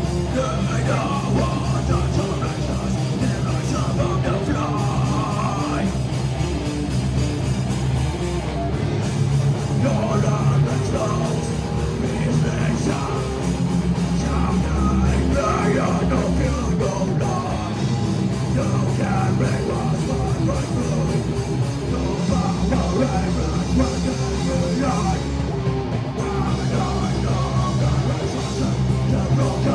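Live heavy metal band playing loud, with distorted electric guitars, bass, fast drumming and a vocalist over the top.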